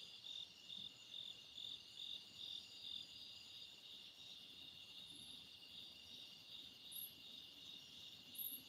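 Faint chirping of crickets, a steady high pulse of about two or three chirps a second.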